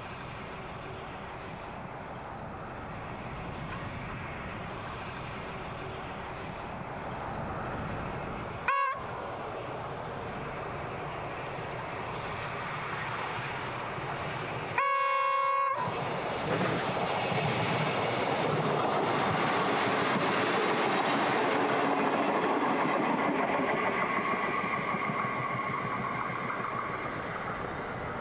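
NSWGR 620/720 class two-car diesel railmotor approaching and running past, its engines and wheels growing louder through the second half, with a steady high whine near the end. It sounds its horn twice: a very short toot about a third of the way in, then a blast of about a second near the middle.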